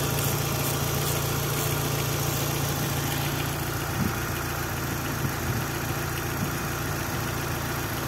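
Mitsubishi 4G63 turbo engine idling steadily, with a knock from the timing belt's hydraulic tensioner, which the owner judges has failed; the knock shows up only when the engine is hot.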